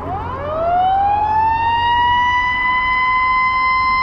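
A siren winding up: one tone rising in pitch over the first second or so, then holding steady and loud.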